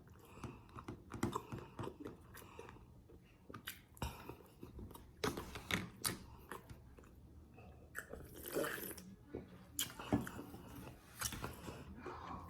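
A person chewing and biting food close to the microphone, with irregular crunches and mouth clicks coming and going.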